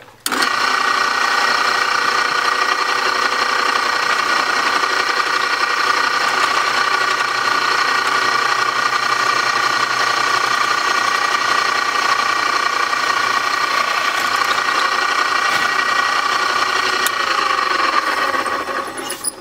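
Old drill press running and drilling a 21/64-inch hole through a soft steel pipe fitting. Its motor gives a steady, loud whine that starts abruptly, then winds down and falls in pitch near the end as the press is switched off.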